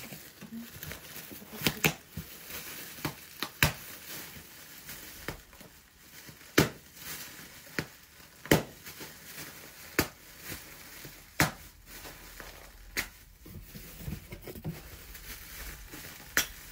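Crumpled newspaper crinkling, with scattered sharp crackles and softer rustling between them.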